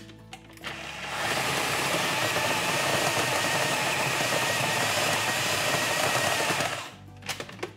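Food processor motor starting up and running steadily for about six seconds, chopping pitted Medjool dates into a sticky crumb, then cutting off.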